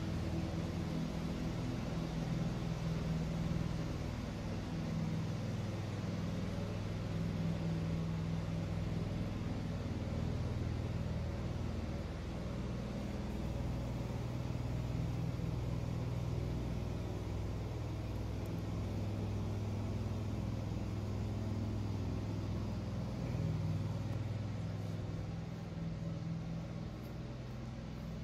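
A steady low machine hum and rumble, with a few low tones that shift slightly in pitch now and then.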